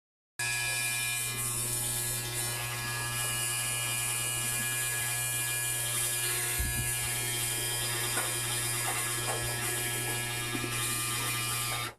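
Electrolux LSE09 washer-dryer making a steady, deafening noise made of several steady tones as it starts filling with water, a noise the owner blames on a factory defect. It cuts off suddenly near the end.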